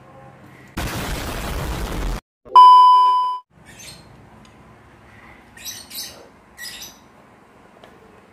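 A burst of loud static-like hiss for about a second and a half, then, after a short gap, a loud steady beep like a censor bleep that lasts under a second. After that come a few faint short scraping clicks.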